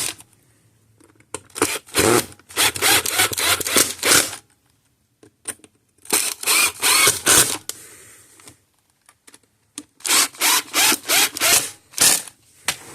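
Three bursts of rapid clicking and rubbing, each lasting two to three seconds, with quiet gaps between.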